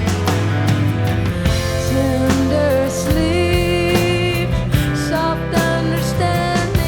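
Band music with a steady beat: drums, a held bass line and a melody that slides between notes.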